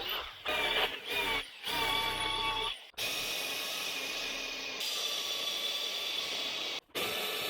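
Power tool running with a steady high whine, heard in several short stretches that cut off abruptly.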